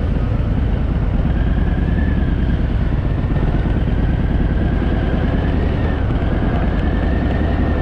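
Engine running steadily with a dense low rumble and a faint wavering whine above it.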